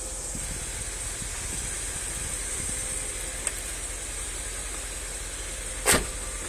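A steady hiss, then one sharp click near the end as a hand takes hold of the chrome door handle on a 1962 Lincoln Continental.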